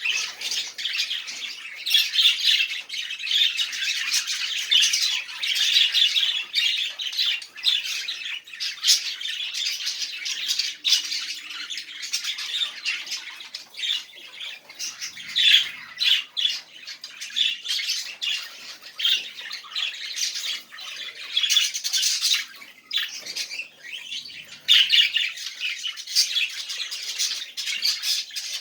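Budgerigars warbling and chattering nonstop, a fast run of high chirps with sharper squawks mixed in.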